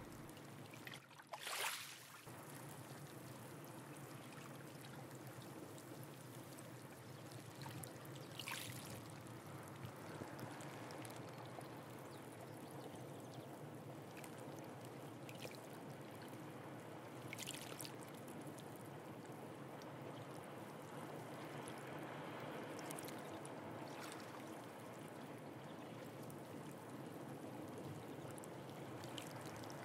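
Sea water washing and trickling gently among shore rocks, a steady soft rush, with three brief louder swishes.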